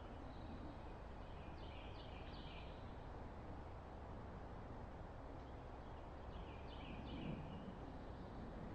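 Faint woodland ambience with a steady background hiss, and a small bird calling twice: a short run of quick, high, falling chirps about a second and a half in, and another about six and a half seconds in.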